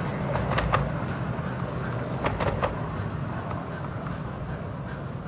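Miniature railway passenger coaches rolling past on the track: a steady low rumble with two short clusters of clicks from the wheels passing over rail joints, about half a second and about two seconds in, fading as the train moves away.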